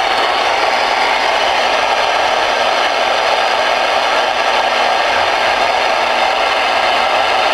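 Steady hiss of static from a Voyage VR-9000 ten-meter radio's speaker while it listens on a channel with no station answering.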